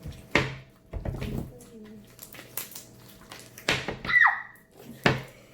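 Sticky glue slime being squished and slapped by hand: a few loud, wet squelches, with a short falling squeak a little past halfway.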